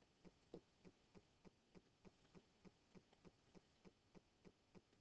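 Near silence, with faint, evenly spaced ticking at about three ticks a second.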